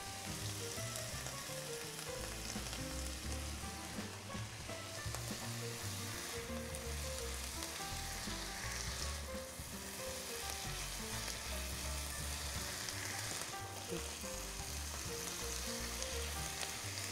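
Onion and green and red bell peppers sizzling steadily as they sauté in a pan for a refogado.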